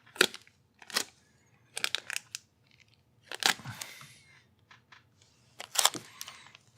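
Translucent packing tape being pulled and handled: a string of short crackles and snaps, with longer rustling crinkles about three and a half seconds in and again near six seconds.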